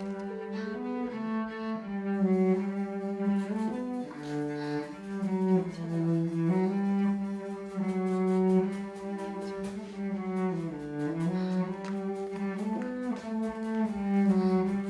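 Slow melody on a single low bowed string instrument, one held note gliding into the next.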